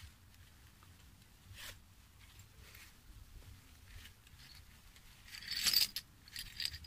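A cloth finds pouch rustling as it is handled and opened, then coins and other small metal finds clinking and jingling as they are tipped out, loudest about five and a half seconds in, with a smaller clatter just after.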